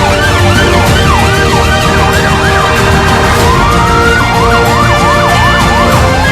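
Emergency vehicle siren sweeping up and down two or three times a second, changing to a single slower rising wail just past halfway, then a faster yelp of about four sweeps a second, over a steady background music track.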